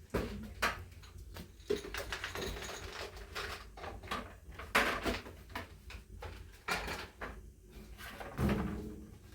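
Irregular knocks, clatters and rustling of things being handled and moved about, with a louder dull sound about eight and a half seconds in.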